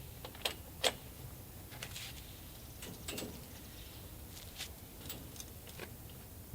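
Scattered light clicks and knocks from a chicken coop's doors and fittings being handled, the two sharpest in the first second and more spread through the rest.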